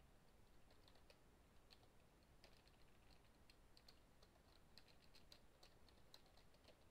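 Faint typing on a computer keyboard: scattered, irregular light key clicks.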